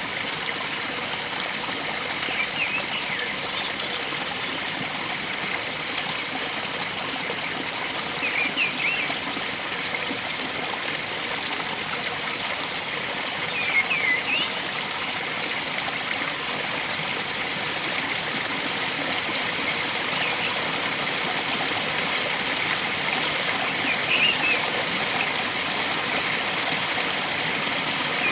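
A stream flowing and trickling steadily, with a bird giving short chirping calls every few seconds.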